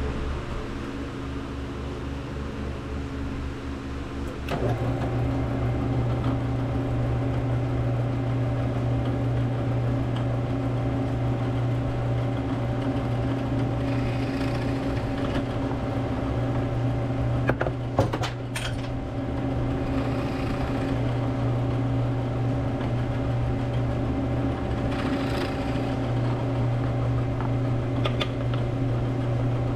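Drill press motor running steadily with a hum that steps up and gets louder about four and a half seconds in, as the bit bores into a small block of oak a few times. There are a couple of sharp clicks about two-thirds of the way through.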